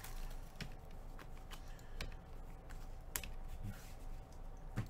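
Gloved hands handling trading cards and torn pack wrappers on a table: scattered light clicks and taps, a few every second.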